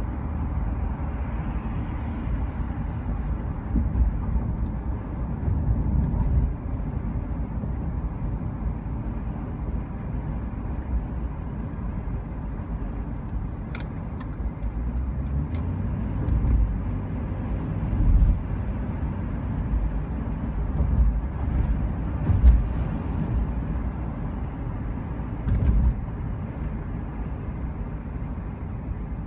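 Steady low rumble of a vehicle driving, with a few louder swells and occasional brief clicks.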